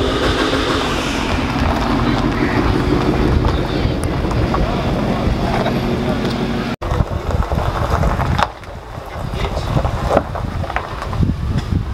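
A Ford Mustang's engine and exhaust running steadily at low speed as the car rolls past, cut off abruptly about two-thirds of the way through. After that come wind noise on the microphone and background voices.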